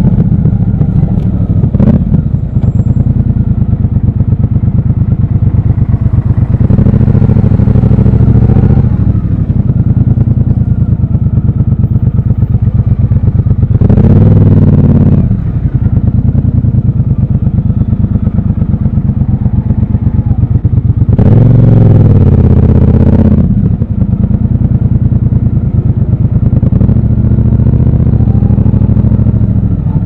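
Triumph 1200 parallel-twin motorcycle engine running at low revs, with three spells of throttle where it revs up and back down: about seven, fourteen and twenty-one seconds in.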